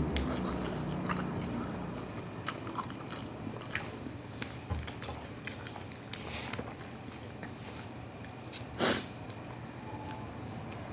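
Close-up chewing and biting of a mouthful of instant noodles with meatballs, egg and cabbage, with many small wet mouth clicks. A short, louder noise comes about nine seconds in.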